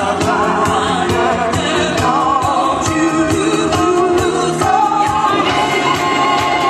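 Loud pop song with singing voices over a steady beat.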